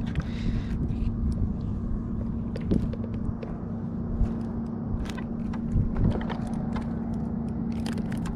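Spinning reel being wound in against a hooked fish: scattered clicks and knocks over a steady low rumble.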